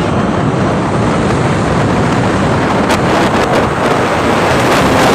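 Wind rushing over the microphone of a moving vehicle, mixed with steady road and engine noise, with a few brief crackles of buffeting from about three seconds in.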